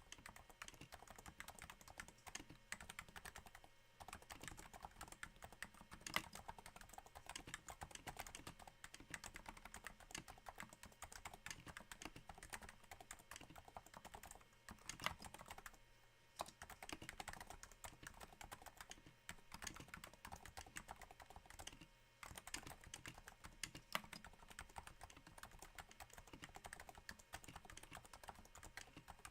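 Continuous typing on a Cooler Master Novatouch keyboard with Topre-style capacitive switches damped by Hypersphere silencing rings: a soft, quiet, rain-like run of keystrokes. It pauses briefly a few times, and a few keystrokes stand out louder.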